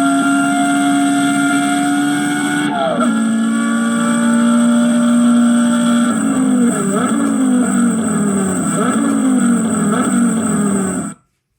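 Recorded Porsche Carrera GT V10 engine sound played through a display stand's speakers. It runs at a steady high idle that steps down in pitch about three seconds in. From about six seconds the engine speed rises and falls over and over in short surges, then the sound cuts off suddenly near the end.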